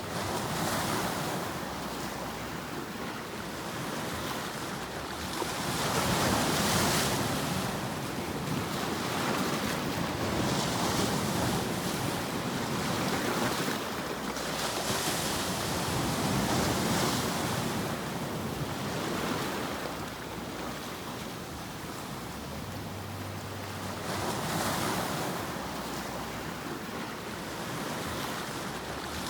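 Continuous rushing noise from a sleep-sound track, swelling and ebbing in slow surges every few seconds in the manner of surf washing in.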